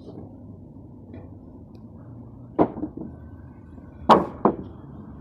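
Kiln-baked walnut blocks knocking against each other as they are tossed onto stacks: a pair of wooden clunks about two and a half seconds in, then a louder pair about four seconds in, over a low steady background noise.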